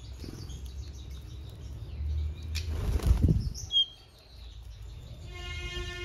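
Small aviary birds' wings flapping close by in a loud fluttering burst about halfway through, ending with a short high chirp; near the end a steady held tone with many overtones sets in.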